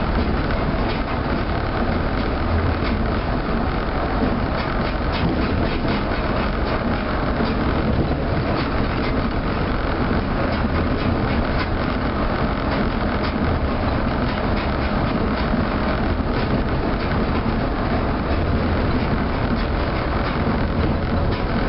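Osaka New Tram automated guideway train running at speed on its rubber tyres along the concrete guideway, heard from inside the front car: a steady running rumble with a fine rattle over it, even throughout.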